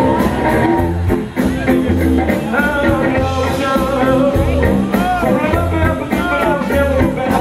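A rock band playing live through a PA: amplified cello, electric bass and a drum kit, loud and steady, with gliding pitched lines that may be the cello's slides.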